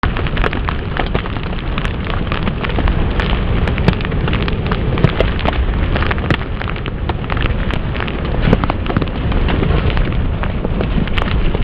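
Hurricane storm noise: surf surging against a boardwalk, with driving rain and wind on the microphone. It is a dense, steady noise, heaviest in the low end, with many sharp crackles throughout.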